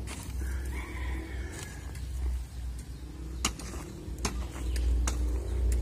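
A hand hoe chopping into and scraping loose soil: several separate strikes spread a second or so apart, over a steady low rumble.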